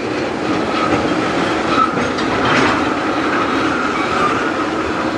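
Freight train tank cars rolling slowly past on the rails: a steady, even noise of steel wheels running over the track.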